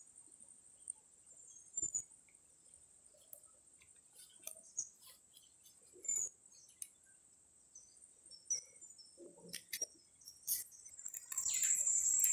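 Forest ambience: a steady high-pitched insect drone with scattered short bird chirps and a few soft knocks, growing louder near the end.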